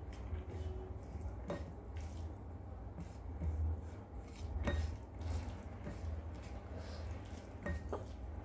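Rice being mixed by hand with mustard gravy on a ceramic plate: soft wet squelching and a few light clicks against the plate, over a steady low hum.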